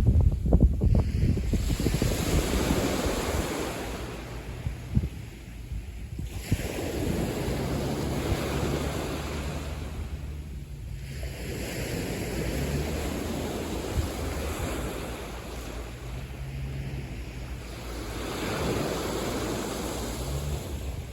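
Sea waves breaking and washing up a natural beach, the surf swelling and falling back every four to five seconds. Wind rumbles on the microphone, most strongly near the start.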